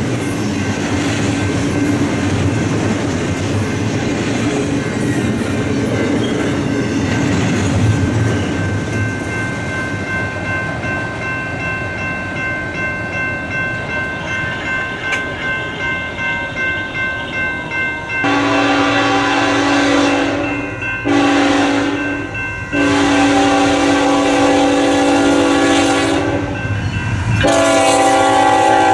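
Double-stack container train rolling past with wheels clicking over the rail joints, fading away. Then a diesel freight locomotive's air horn sounds in long blasts, three and the start of a fourth, the last one falling in pitch as the Union Pacific locomotive passes.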